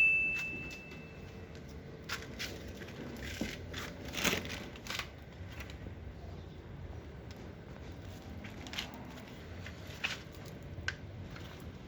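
Scattered light clicks, taps and scrapes of hand work in a body shop, the loudest cluster about four seconds in. At the start, the ringing of a just-struck metal piece dies away.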